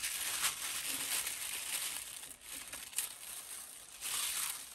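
Pink tissue paper crinkling and rustling as hands unwrap it, louder for a moment near the end.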